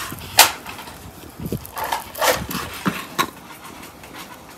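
Kitchen knife chopping through raw beef fat and knocking on a cutting board: a sharp knock about half a second in, then several more between two and three and a half seconds in.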